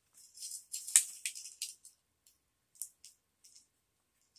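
Crinkling plastic and card packaging and a small metal key ring jingling as a personal alarm keychain is handled and pulled free, with a sharp click about a second in and a few softer rustles after.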